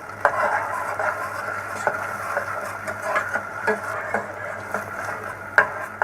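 A spoon stirring and scraping a nut paste frying in ghee in a pan, with a few sharp knocks of the spoon against the pan, the loudest near the end.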